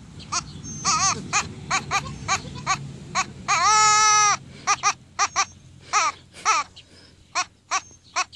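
Black goat kid bleating in a rapid run of short cries, with one longer, louder bleat about three and a half seconds in. The calls thin out towards the end.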